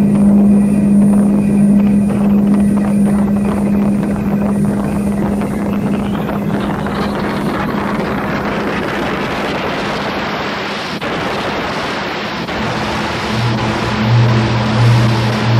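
Experimental drone music: a steady low hum-like tone under a noisy hissing wash that grows brighter from about six seconds in. A lower tone enters in short pulses near the end.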